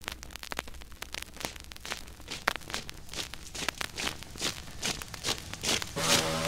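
Vinyl record surface noise in the lead-in: irregular crackles and pops over a low steady hum, with the music of the song starting near the end.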